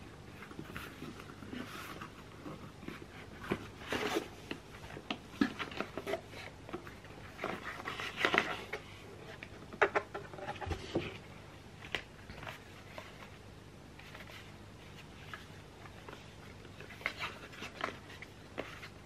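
Cardboard parcel and small paperboard product boxes being handled and opened by hand: irregular rustles, scrapes and light taps, with a busier stretch near the middle.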